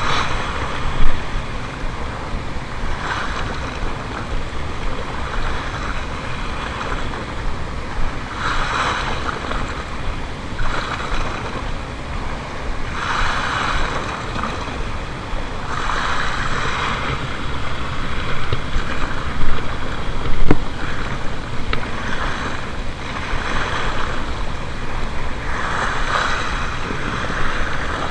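Small sea waves washing against the rocky shore edge, swelling and falling every two or three seconds, with wind rumbling on the microphone. A couple of brief knocks, about a second in and near twenty seconds in.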